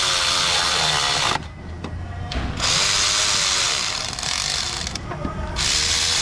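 Cordless electric ratchet running bolts down into the engine's lower intake manifold, its motor whine wavering under load. It runs three times, stopping briefly about a second and a half in and again about five seconds in.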